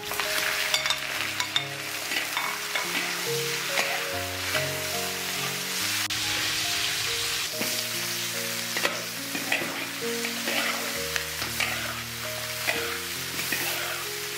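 Pickled radish and duck pieces sizzling in hot oil in a large iron wok, a metal spatula scraping and tossing them, with soft background music under it.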